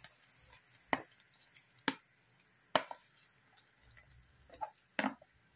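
Five short, sharp knocks as whole shrimp are tipped from a plastic tub into a wok of simmering sauce and pushed around with a wooden spatula. The first three come about a second apart, and two more come close together near the end.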